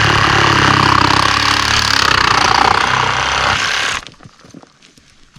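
A power saw cutting into pipe, loud and steady with a rapid low chatter, stopping abruptly about four seconds in.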